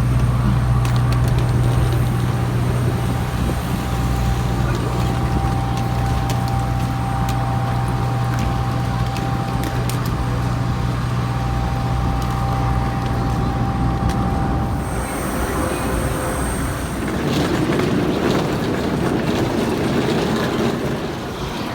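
Steady low droning hum of jet-aircraft machinery, with a faint steady whine above it. About three-quarters of the way through, the drone drops away and a rougher rushing noise takes over.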